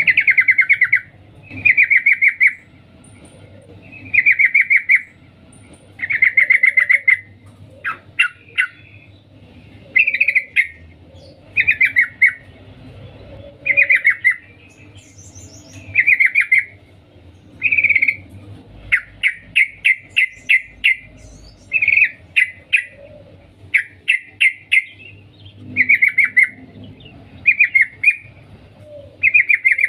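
Yellow-vented bulbul (trucukan) giving its chattering 'cuk cuk' call, offered as a female calling to a male. Loud bursts of rapid, clicky notes repeat about every two seconds, with a quicker string of short bursts around the middle.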